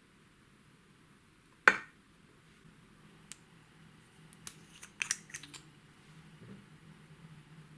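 One sharp click about two seconds in, then a quick run of smaller clicks and taps a few seconds later, from small objects being handled close to the microphone.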